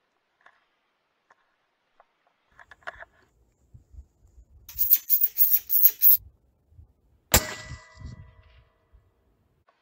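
Handling noise on a scope-mounted rifle, picked up by the riflescope's built-in microphone: a few light ticks, then a quick run of scraping rubs, and a second later a sharp metallic knock that rings briefly.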